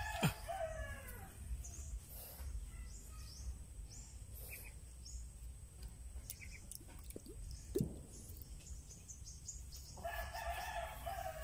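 A rooster crowing twice, once at the start and again near the end, each crow lasting over a second. A few sharp knocks come in between, the loudest just after the first crow.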